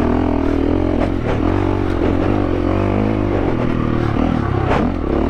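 KTM 350 EXC-F's single-cylinder four-stroke engine running at a fairly steady throttle on a rocky trail, its pitch dipping slightly mid-way. Stones and the bike clatter throughout, with a sharp knock near the end.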